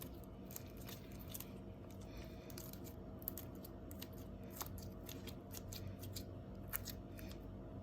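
Faint, scattered sticky clicks and small snaps of freshly made clear-glue slime being stretched and handled by hand, over a steady low background hum.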